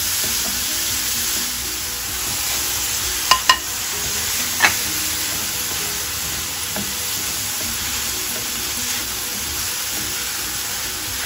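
Chopped ridge gourd frying in oil in a pan, sizzling steadily as it is stirred with a wooden spatula. Three sharp clicks come between about three and five seconds in, two close together and then one more.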